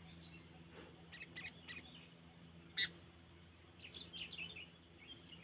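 Sooty-headed bulbul (kutilang) calling in two short runs of chirping notes, with one sharp, louder note between them, nearly three seconds in.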